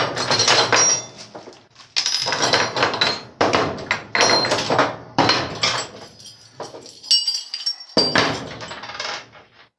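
Metal parts and hardware of a drill press stand being handled and set down: about six bursts of knocks and clinks, some with a brief high metallic ring.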